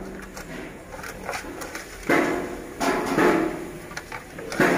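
Raw marinated chicken being pushed by hand into a pig's stomach over a metal basin: irregular bursts of rubbing and handling noise, the loudest about two seconds in and again near the end.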